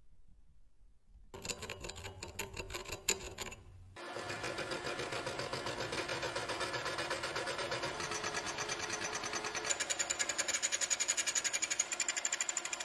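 Milling machine face-milling the rusty vise body. The cutter's teeth chatter against the metal in a fast, even pulse that starts about a second in and turns steadier and louder about four seconds in.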